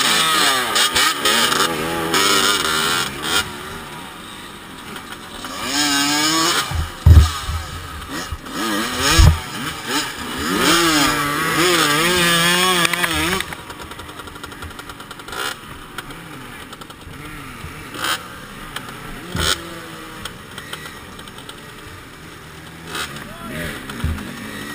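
Several off-road dirt bike engines revving up and down in rising and falling pitch in thick mud. The hardest revving comes in bursts about six seconds in and again from about ten to thirteen seconds, with two heavy thuds in between. It settles to lower engine noise after that.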